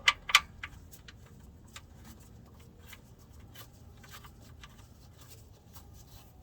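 Two sharp clicks near the start, then scattered light ticks and taps of small parts being handled, as the oil drain plug is threaded back in by hand.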